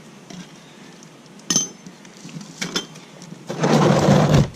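Metal hand tools clinking against the motorcycle's engine and drain plug: one sharp clink, two lighter taps, then a loud noisy rush lasting about a second that stops abruptly.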